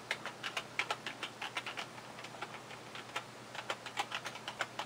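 Computer keyboard keys tapped in an uneven run of keystrokes as a password is typed, the taps thinning out in the middle before picking up again.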